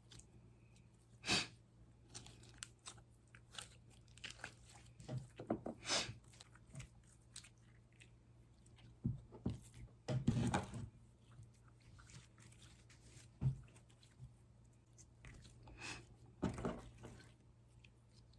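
Slime being squeezed and kneaded by hand: irregular wet clicks, pops and squelches, with a louder cluster about ten seconds in.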